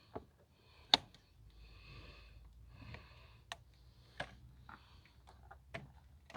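Faint handling noise with a few sharp clicks, the loudest about a second in: a hose clamp and rubber upper radiator hose being turned and worked into place by hand in a tight engine bay.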